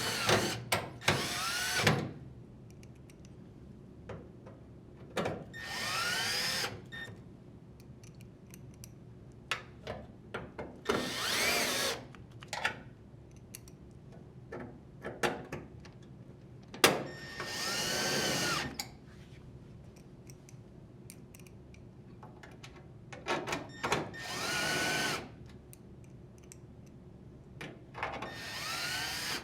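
Drill driver with a Phillips bit driving screws into a washer's sheet-metal panel: about six short runs of a second or so each, the motor's pitch rising then falling, with small clicks between runs.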